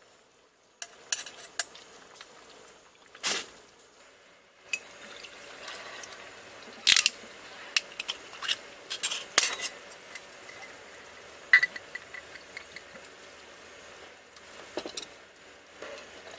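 Camp cooking: metal utensils clinking and scraping against pots and dishes in a series of sharp strikes, over a faint steady hiss of cooking.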